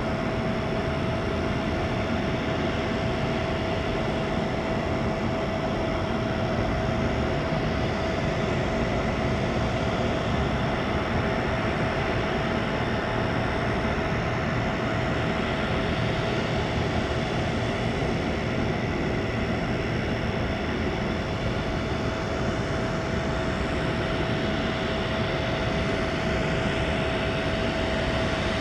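A parked airliner's auxiliary power unit running steadily: a constant rushing noise with a single unchanging whine.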